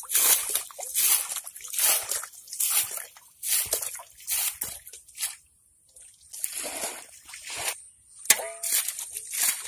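Shallow muddy water being scooped and splashed out with a bowl, in repeated splashes about one or two a second with a short lull a little past the middle. A sharp click comes near the end.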